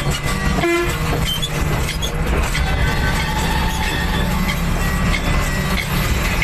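Heavy vehicle's diesel engine running steadily and loudly, with a short horn-like toot about a second in.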